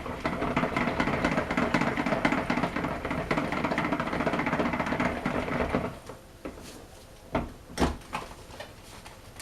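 Immersion stick blender running steadily in soap batter, mixing the base, then switched off about six seconds in; a couple of light knocks follow.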